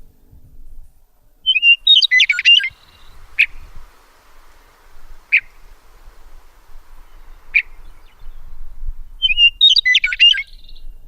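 A songbird singing: a quick, jumbled phrase of chirps and trills about two seconds in, repeated near the end, with single sharp chirps roughly every two seconds in between.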